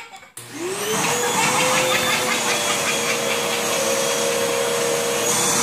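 Canister vacuum cleaner switched on: the motor starts abruptly and spins up, its whine rising briefly and then holding steady with air rushing through the hose.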